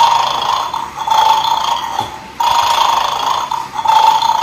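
Toy dog's electronic snoring sound effect playing from its small speaker, a snore repeating about every three seconds, twice here.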